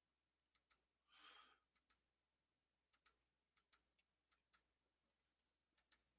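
Faint computer mouse button clicks, coming in quick pairs about six times, with a soft breath-like hiss just after one second in.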